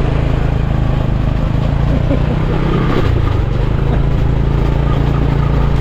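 Motor vehicle engine running steadily with a constant low hum.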